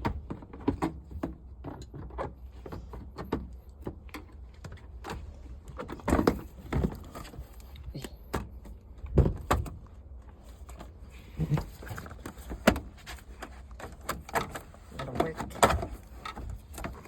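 Irregular metallic clicks, clinks and knocks of hand tools and car parts being handled while a seat belt and trim are unscrewed from a salvage car, over a steady low rumble.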